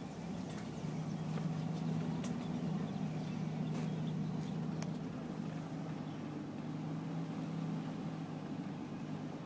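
Steady low drone of a car's engine and road noise heard from inside the moving car, with a few faint clicks.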